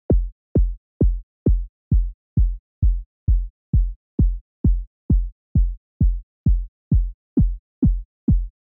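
Synthesized sine-wave kick drum from Serum repeating four to the floor, a little over two hits a second: each hit a very fast downward pitch sweep into a deep sub. The pitch envelope that gives the kick its punch is being adjusted while it plays, so the start of each sweep shifts higher and lower from hit to hit.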